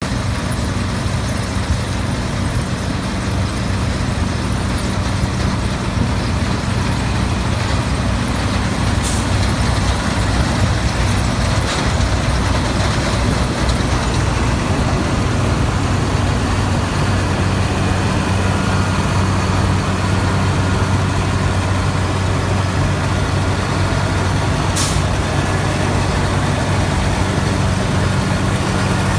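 New Holland TX 68 combine harvester running steadily: the six-cylinder engine's steady drone under the wide rushing noise of the machine.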